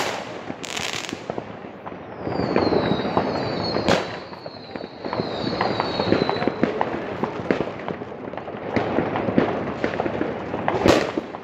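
Fireworks and firecrackers going off in a dense, continuous crackle, with a few sharp bangs. Several whistling rockets sound together in the first half, their whistles falling in pitch.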